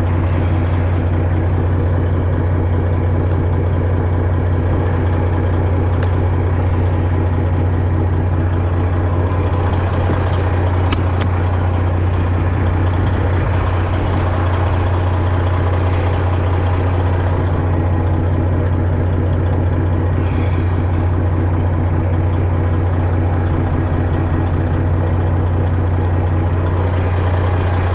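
An engine running steadily with a strong, unchanging low drone, and a couple of faint clicks about ten seconds in.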